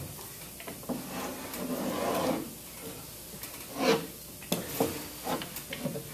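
Stainless-steel pump motor and a wrench handled on a wooden workbench: a scraping rub about a second in, then a knock near the middle and a run of short metal clinks.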